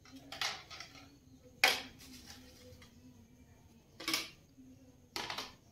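Kitchenware being handled and set down: a steel plate and a plastic board knocked and clattered four times, the loudest about a second and a half in.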